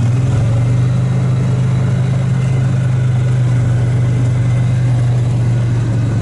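Engine of a Ranger utility vehicle running at a steady pace while riding, a loud, even low hum heard from on board.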